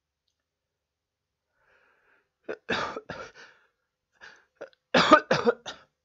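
A man coughing in two bouts: a couple of coughs about two and a half seconds in, then a louder run of coughs near the end.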